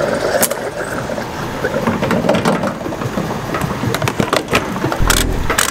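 Diesel fuel flowing from a pump nozzle into a pickup's tank, a steady rushing hiss. Near the end the nozzle is hung back on the pump: two sharp knocks over a low thump.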